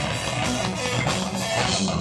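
A live heavy rock band playing: electric guitar through an amplifier over a drum kit, with dense, steady drumming.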